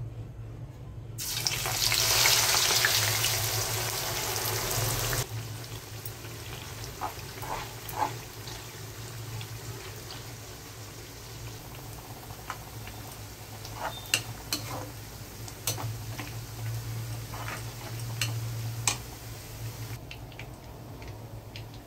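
Sliced onions dropped into hot oil in a kadhai sizzle loudly for about four seconds, then settle into a steadier, quieter frying sizzle while a metal spoon clicks and scrapes against the pan. A low steady hum runs underneath.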